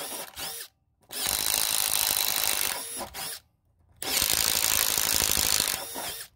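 Makita 18V cordless impact driver boring holes in a wooden board with a 3/4-inch Irwin Speed Bore spade bit, hammering away under load. Three times the motor winds down with a falling whine and stops briefly between holes: just before one second in, around three and a half seconds, and near the end.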